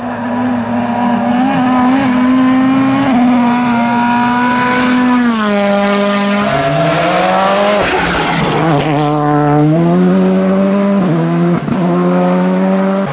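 Turbocharged four-cylinder rally car engines at racing revs on a stage. The pitch drops in steps on downshifts, about five to six seconds in, and climbs again under acceleration between further gear changes, with a short rasp of noise about eight seconds in.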